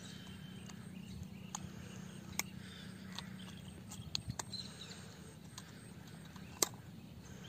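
Scattered sharp little clicks of a metal hook remover working a hook free from a small snakehead's mouth, a few clicks in a row about four seconds in and a single sharp one near the end, over a faint steady hum.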